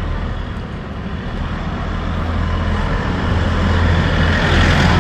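Engine of a light truck coming up the street: a steady low hum with a rushing noise that grows louder over the second half.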